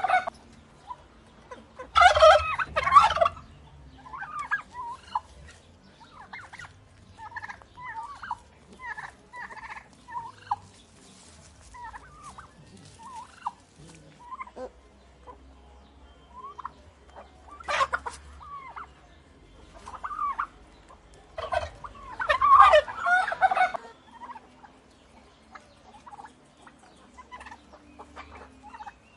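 Turkey gobbling: two loud rattling gobbles, one about two seconds in and one near the end, with shorter, softer calls scattered between them.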